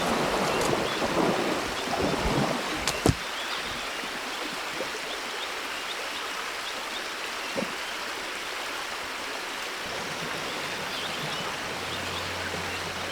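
Steady rush of a flowing river. For the first three seconds it is overlaid by louder rustling and knocking of movement close by, ending in a sharp snap about three seconds in.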